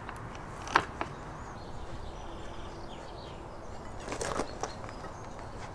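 Quiet background with a few short, light metal knocks and clicks from steel tools handled against the rail: one about a second in and a small cluster just past four seconds.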